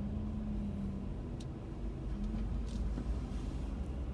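Low steady rumble of road traffic and idling engines heard from inside a car stopped at a red light, with a low engine hum that fades and returns and a couple of faint clicks.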